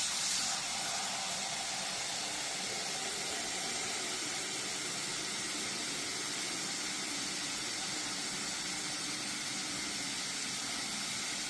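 Steady hiss of spraying water, even and unbroken.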